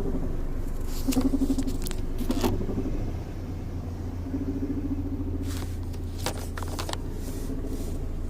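1996 Toyota Corolla's four-cylinder engine struggling, heard from inside the cabin: a steady low rumble with a hum that swells and fades every few seconds. Two clusters of sharp clicks sound over it, about a second in and again past the middle.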